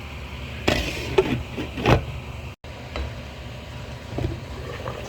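A pot of soup on a gas burner, with a steady low rumble, and several clatters and knocks of the pot or utensils about one and two seconds in. The sound cuts out for a moment midway.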